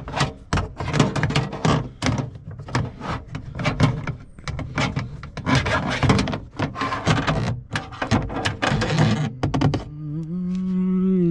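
Hand rummaging inside a car door cavity for dropped bolts, a fast, continuous run of knocks and rattles against the door's metal and plastic. Near the end the rattling gives way to a steady hum that grows louder.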